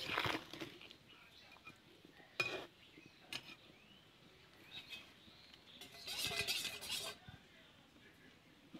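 Metal spatula clinking and scraping against a steel kadai of curry in a few short, separate bursts, with sharp clicks between them.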